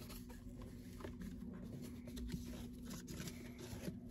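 Faint rustling and scratching of a boxed USB microphone's packaging being handled and opened, with a few small clicks, over a steady low hum.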